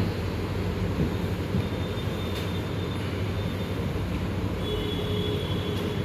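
A steady low hum and rumble with no break, with a faint thin high whine joining it in the second half.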